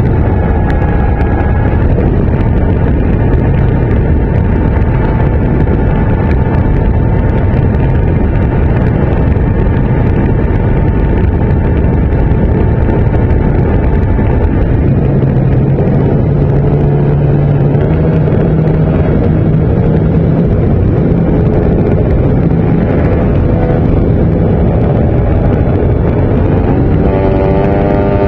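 Radio-controlled model airplane in flight, heard through its on-board camera: loud wind rush over the microphone with the steady drone of its motor and propeller. A little past halfway a lower tone comes in, and near the end the motor's pitch wavers and drops.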